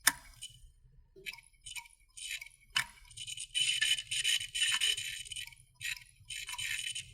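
Failing computer hard drive clicking as it dies: a sharp click at the start and another a little before three seconds in, with irregular bursts of high-pitched scratchy rattling between them, over a faint low hum. The clicking is the sign of a drive at the end of its life.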